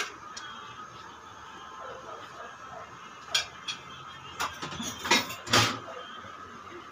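A metal spoon clinking and knocking against an aluminium cooking pot, one sharp clink at the start and then a cluster of clinks and knocks about three to six seconds in, over a steady low background hum.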